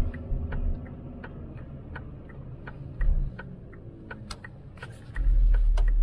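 Cabin sound of a VW T4 Transporter van on the move: the engine running with its note drifting up and down, under a low road rumble and scattered irregular rattling clicks from the cabin. The low rumble grows louder about five seconds in.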